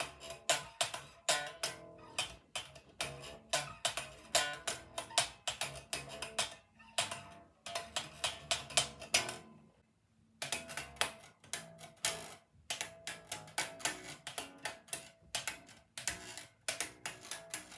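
Unplugged Yamaha RBX375 five-string electric bass played slap style: thumb slaps and finger pops snap the strings against the frets in a fast, dense run of sharp clicky twangs, with only the bare acoustic string sound and no amplifier. The playing stops briefly about ten seconds in, then carries on.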